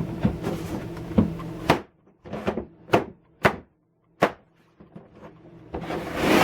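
Hard plastic panels of a chainsaw storage case clattering as they are handled, then about five sharp whacks as the side panel is knocked onto its locating pins to lock it in place. Near the end a scraping rub of plastic on plastic.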